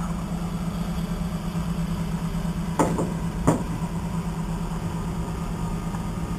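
Case IH 305 Magnum tractor engine running steadily, heard from inside the cab, with two short sharp knocks a little under a second apart about three seconds in.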